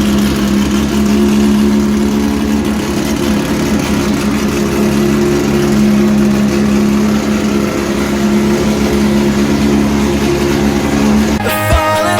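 Engine of a 1972 Fiat Abarth running at a steady speed, with a constant low hum. It stops about eleven seconds in.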